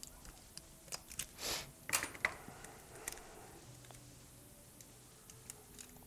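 Amber Kapton heat-shield tape being handled and pressed down on a circuit board: crinkling and small clicks, with a brief rasp about a second and a half in and a few sharp clicks just after.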